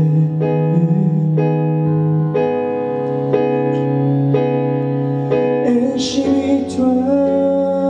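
Instrumental passage of a live pop song: piano chords on a Kurzweil PC88 stage piano, struck about once a second over a held low bass line that changes note every few seconds.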